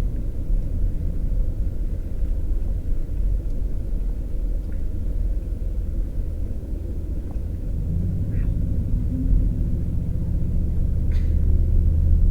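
Car engine and tyre rumble heard from inside the cabin while driving. About two-thirds of the way in, the engine note grows louder and steadier, as if the car is pulling harder.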